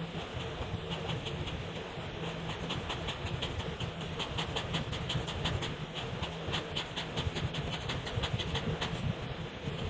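Felt-tip marker scratching across paper in quick back-and-forth colouring strokes, a few strokes a second, over a steady low hum.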